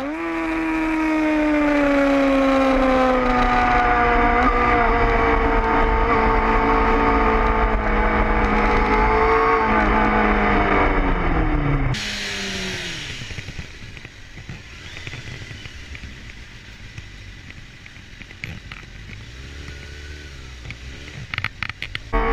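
Motorcycle engine heard from on board at speed: a loud, steady engine note that sags slowly in pitch and drops away near twelve seconds in. Then a quieter Suzuki sport bike engine under wind noise.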